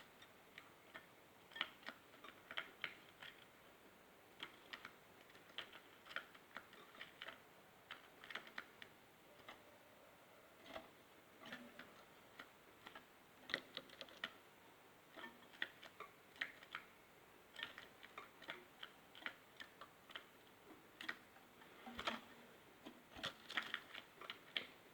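Scattered light clicks and taps from a pet European goldfinch moving about its cage, coming in irregular clusters with short pauses.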